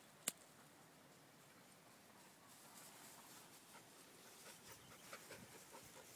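Near silence, broken by one sharp click just after the start, then faint scattered light rustling and ticking in the second half.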